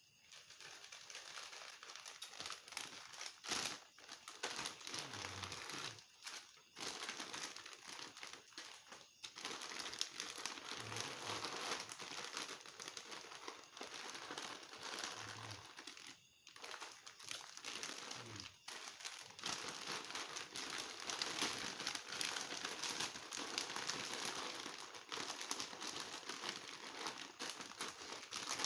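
Dense crinkling rustle of dry, crisp material being handled, going on almost throughout with a few brief pauses.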